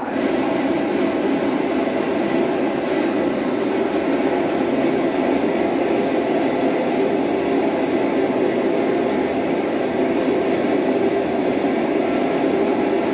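Professional pet grooming blower-dryer running steadily at full blast, blowing warm air onto a wet cat.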